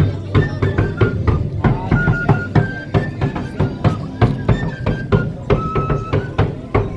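Live band music: drums beating several strokes a second under a melody of short held notes.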